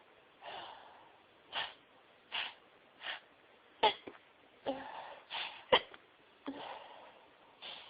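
A woman's sneezing fit: a run of short, gasping in-breaths and sneezes, the sharpest sneezes about four and six seconds in.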